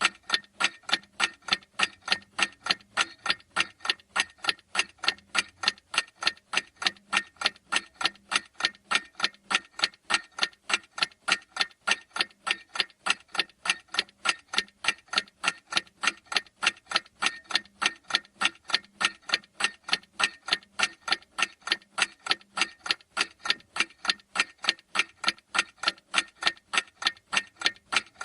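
Clock ticking in a steady, evenly spaced tick-tock.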